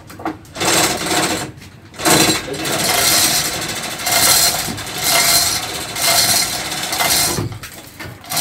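Manual chain hoist being hauled hand over hand to lift an engine block, its hand chain rattling and clinking over the hoist wheel in repeated pulls about once a second.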